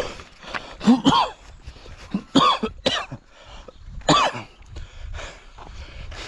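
A man out of breath, breathing hard and coughing: about five loud short coughs spread over the first four seconds, then quieter heavy breathing.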